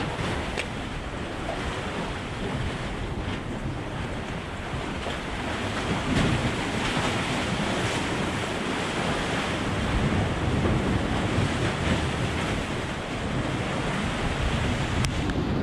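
Wind buffeting the microphone over the wash of sea waves, growing a little louder about six seconds in.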